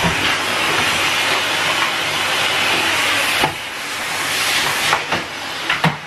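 Numatic Henry vacuum cleaner running with a steady hiss of suction. In the second half come a few short knocks as the hose and wand are handled.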